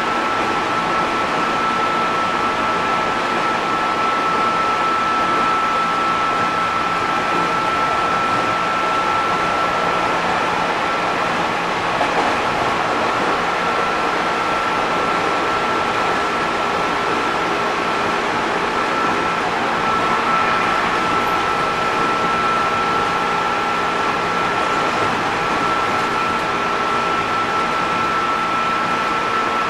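Running noise inside a JR East 205 series 600 subseries electric train car: a steady wheel-and-rail rumble with a steady whine above it.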